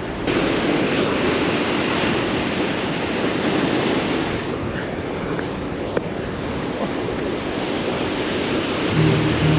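Steady rush of fast-flowing water, a mountain river or waterfall, with a few faint clicks.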